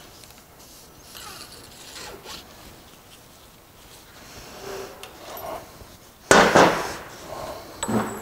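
Metal parts being worked by hand on a Borg-Warner 1356 transfer case's output shaft while a retaining ring is removed: light scrapes and rubs, then a short loud scrape a little over six seconds in and a smaller one near the end.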